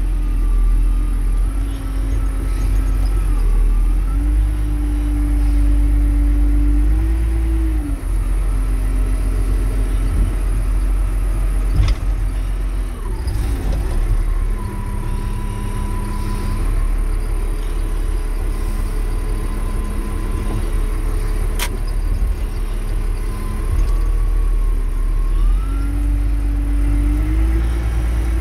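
Caterpillar wheel loader's diesel engine running under hydraulic load, heard from inside the cab while the raised bucket tips its load and is brought back. Its pitch drops for a stretch in the middle and climbs again near the end, with two sharp clicks in the middle.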